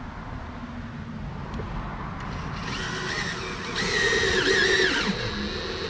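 Cordless drill driving screws, its motor whining in two runs about two and a half and four seconds in, the second louder, with the pitch dipping under load.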